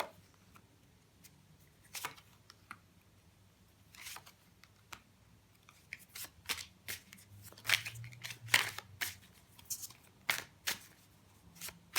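Tarot cards being handled: a scatter of sharp, irregular clicks and snaps as cards are shuffled and flipped. They grow busier about halfway through.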